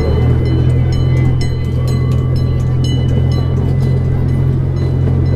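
Miniature zoo train running along its track: a steady low drone with many small clicks and rattles from the moving cars.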